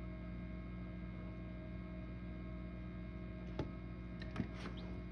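Steady electrical hum of an egg incubator running, with a couple of faint short clicks near the end.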